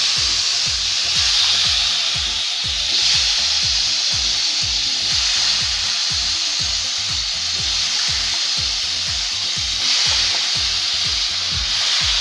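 Raw potato cubes frying in hot oil and spice paste in a kadhai: a steady sizzling hiss, over a regular low beat about three times a second.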